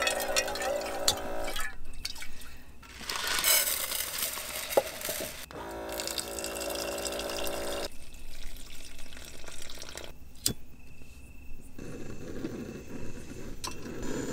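A small electric pump on a bottled-water jug hums in two spells, about three seconds each, as it fills a camping pot, with water splashing in between. Near the end there is a click, then a portable gas camping stove burns with a steady low rush.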